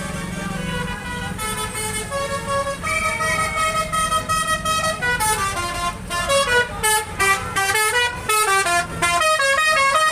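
Bus telolet horn: a tour bus's multi-tone musical air horn playing a tune, held notes at first and then quick stepping notes from about halfway through, over the steady rumble of the bus engine.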